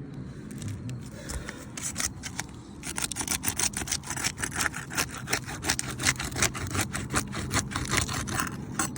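Asphalt roof shingles having their adhesive seal broken loose: a rapid, irregular run of crackling, scraping clicks that starts about three seconds in and continues, over a steady low hum.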